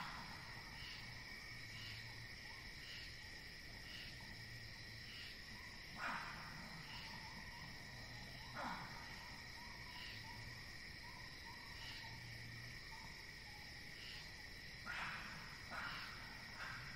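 Steady chorus of crickets and other night insects, with a shorter chirp repeating about once a second. A few short sharp sounds break in about six seconds in, near nine seconds (this one falling in pitch) and several times near the end.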